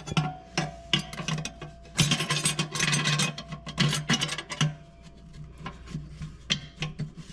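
Low-reverse clutch housing of a 200-4R automatic transmission being pressed by hand down into the transmission case: metal scraping and clicking as its tabs and splines work into place, the scraping loudest from about two to four and a half seconds in.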